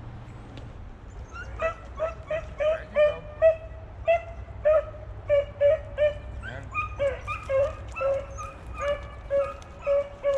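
Hunting beagle yipping repeatedly in short, high cries, about two or three a second, starting about a second in and coming faster in the second half.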